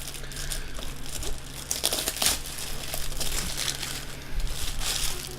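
Thin plastic card sleeves being handled and pulled apart, crinkling with irregular rustles and small crackles. The rustles are louder around two seconds in and again near the end.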